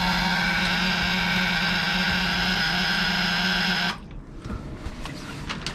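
Electric fuel pump on a Crusader marine engine running at key-on with a steady buzzing hum, pushing fuel through for a fuel sample. It cuts off abruptly about four seconds in.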